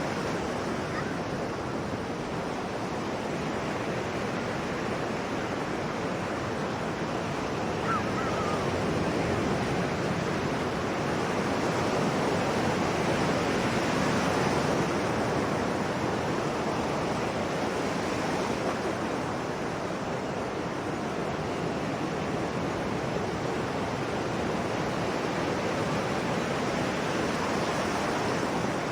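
Sea waves washing continuously on a shore, a steady rushing surf that swells gradually about halfway through and eases off again.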